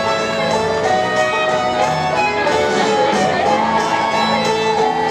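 Country-style string music with fiddle and guitar over a steady beat.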